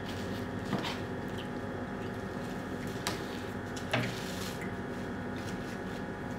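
Eating takeout food: a few short, soft clicks and squishy handling noises, the loudest about four seconds in, over a steady room hum.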